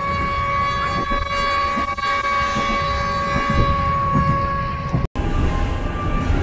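Train horn sounding one long steady blast over the low rumble of the moving train; the blast cuts off suddenly about five seconds in, and the train's rumble carries on.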